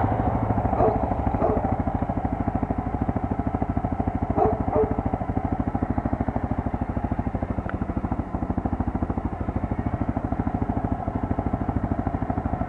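Quad (ATV) engine running steadily at low revs, with an even, rapid pulse and no revving, and faint voices briefly on top.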